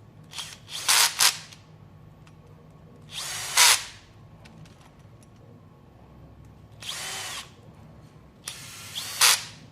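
A power screwdriver driving the screws that fix the arms to a carbon drone frame, in four short runs of about half a second to a second each, most getting louder at the end.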